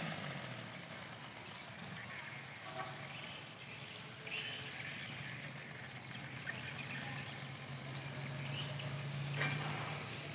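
Long-tail boat engine idling faintly at a steady low pitch, throttled back with rubbish fouling its propeller, with a few faint bird chirps over it.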